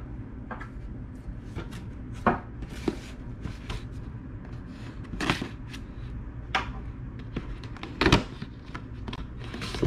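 A serrated knife slitting the seal of a cardboard box and the flaps being worked open: a run of sharp scrapes and cardboard clicks, the loudest about two, five and eight seconds in, over a low steady hum.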